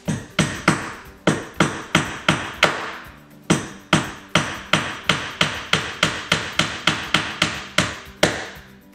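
Hammer driving 1-inch panel board nails into a wooden countertop: a steady run of about two dozen blows, roughly three a second, with a short pause about three seconds in.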